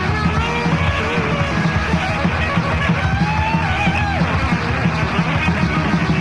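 Death metal band playing live: distorted electric guitars and rapid drums in a dense, loud wall of sound, with a high guitar line sliding up and down in pitch across the middle.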